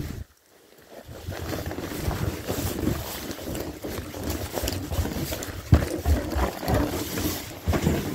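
Wind buffeting the microphone as a person walks through snow, an uneven rumbling hiss with a few sharper knocks in the second half.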